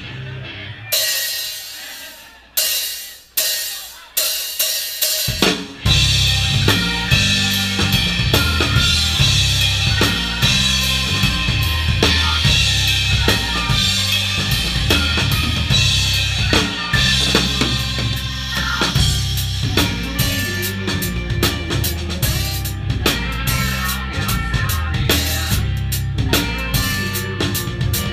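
Live rock band heard from behind the drum kit. A few loud drum and cymbal hits ring out and fade over the first five seconds, then the full band comes in about five and a half seconds in: kick drum, snare and cymbals driving over a heavy, shifting bass and guitar riff.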